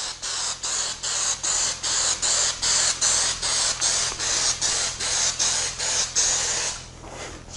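Aerosol can of 3M Hi-Strength 90 spray adhesive hissing as it lays a coat of glue on leather. The hiss dips briefly about four times a second and stops near the end.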